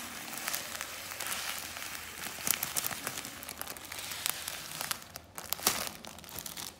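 Granulated sugar pouring from a plastic bag into a glass jar of mulberries: a steady hiss of falling grains with plastic bag crinkling and a few sharp clicks, quieter near the end.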